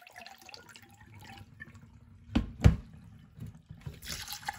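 Split moong and masoor dal being rinsed in a bowl in a stainless steel sink: water and lentils splashing, two loud thumps about two and a half seconds in, then the tap starting to run into the bowl near the end.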